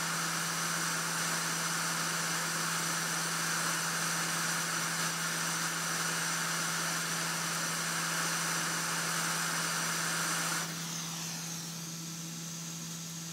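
Hot-air rework station blowing a steady hiss of hot air over a low fan hum, reflowing the solder under a charger IC that is held pressed down. About ten and a half seconds in the air hiss falls away and only the lower hum carries on.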